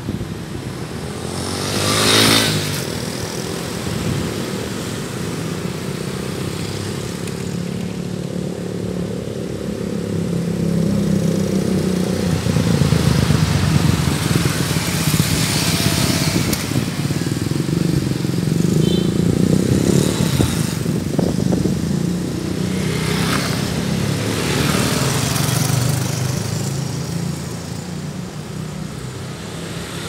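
Street traffic of motorcycles and cars driving past close by, one after another, engines running over a steady drone. The passes swell and fade, the sharpest about two seconds in, with more in the middle and toward the end.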